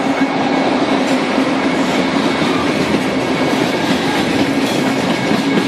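Freight train passing close by, the wheels running on the rails in a steady, loud rolling noise that does not let up.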